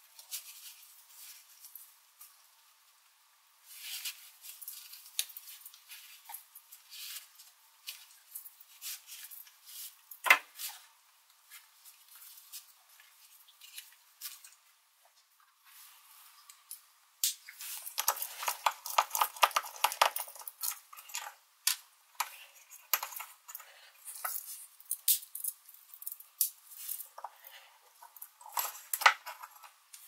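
Victorinox Swiss Army knife being handled and worked against a wooden block: small metal tools clicking and scraping on wood and a screw. There is a single hard click about a third of the way in and a busy stretch of rapid scraping a little past halfway.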